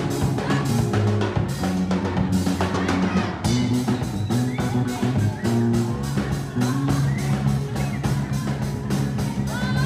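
Live band playing: a drum kit keeping a steady beat, with electric bass and keyboard.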